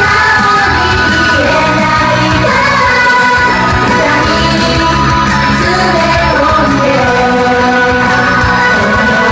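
Japanese idol-pop song performed live: several young women singing together into handheld microphones over a loud, recorded pop-rock backing track.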